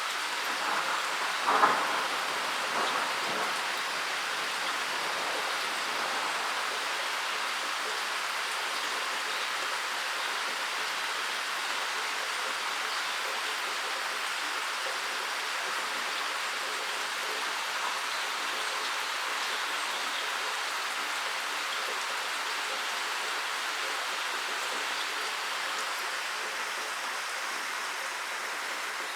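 Steady rain falling in a forest, an even hiss of drops. About a second and a half in there is a short, sharper hit, with a smaller one a second later.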